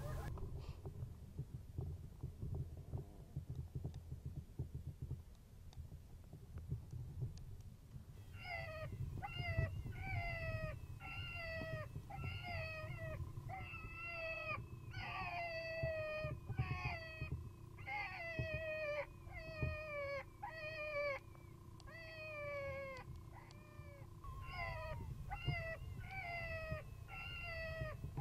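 A predator call sounding a fast series of short, falling, meow-like distress cries, about one and a half a second, starting about eight seconds in and running on with brief pauses. Wind buffets the microphone throughout.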